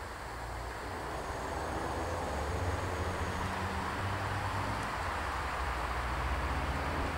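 VT628 diesel railcar approaching, its engine giving a low, steady hum that grows slowly louder as it nears.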